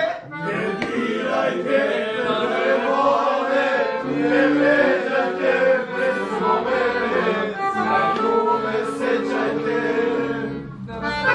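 Voices singing a song over instrumental music, with long held notes.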